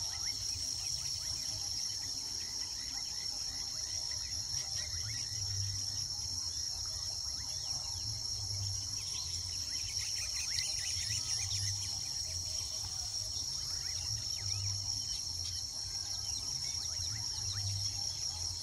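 A steady, high-pitched insect chorus, with many short chirps from a colony of weaver birds scattered through it.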